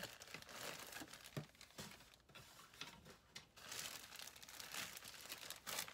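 Clear plastic packaging crinkling and rustling as it is handled, with irregular small crackles throughout, faint.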